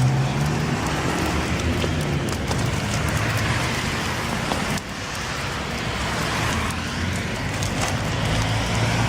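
Steady road-traffic noise with a vehicle engine humming low, dipping briefly about halfway through.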